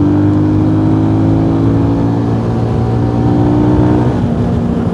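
Motorcycle engine running under way, its pitch rising slowly as it pulls, then dropping about four seconds in.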